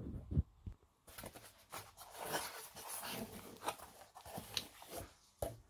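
Packaging being handled inside a cardboard box: a few dull knocks at the start, then a run of rustling and scraping as a hand moves a paper user guide over the polystyrene packing.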